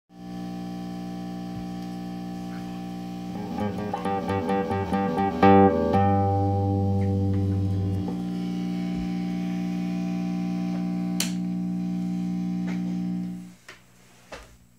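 Orange AD30 valve guitar amp buzzing loudly with no guitar played: a steady hum with many overtones. It wavers and swells between about three and six seconds in, and cuts out near the end. The owner puts the noise down to its old original Golden Dragon tubes, due for a retube.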